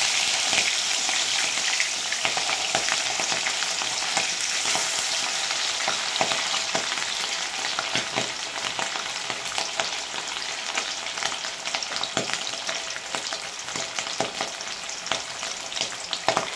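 Hilsa fish steaks shallow-frying in hot oil in a steel kadai: a steady sizzle full of small crackling pops, slowly dying down.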